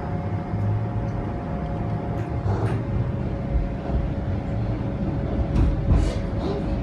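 Bombardier Flexity streetcar running along the track, heard from inside: a steady low rumble of the wheels on the rails with a steady tone above it, and a few sharp knocks about halfway through and near the end.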